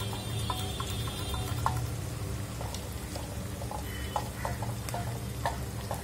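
Wooden dal masher churning cooked dal in an aluminium pressure cooker: wet squelching and sloshing with many small scattered clicks, over a steady low hum.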